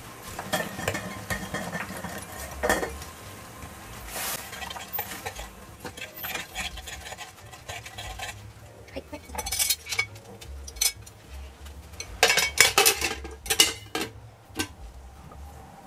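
A spoon stirring kumquats, shochu and sugar in a metal pressure-cooker pot, with scraping and clinking against the pot. There is a cluster of louder knocks about twelve seconds in.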